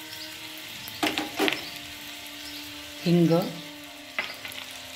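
Garlic, cumin and fenugreek seeds frying in hot oil in a small tempering pan, a steady crackling sizzle as the tadka splutters.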